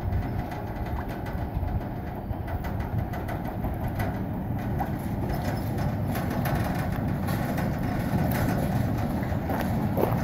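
The Big Chute Marine Railway's steel boat carriage rolling along its rails: a steady low rumble with scattered clicks, getting a little louder in the second half as it comes past.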